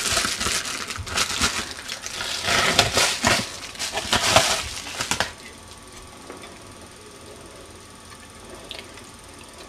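Crinkling and rustling of a red anti-static bubble-wrap bag as it is handled and opened to take out a circuit card, lasting about five seconds. After that there is only low room tone.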